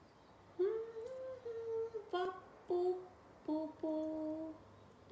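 A woman humming a short, wordless tune of several held notes, starting about half a second in.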